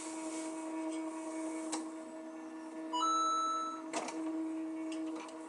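XYZ 3D printer humming steadily while loading filament, with a few sharp clicks and a short, louder tone that steps up in pitch about three seconds in. The extruder's stepper motor is not drawing the filament through, which the owner thinks is a jam.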